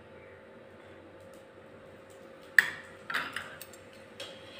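A metal spatula knocks sharply against the pan about two and a half seconds in, then gives a few lighter clinks and scrapes as it works under the roti.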